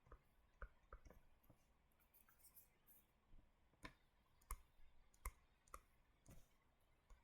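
Faint, irregular clicks and taps from writing, with a few brief scratchy strokes.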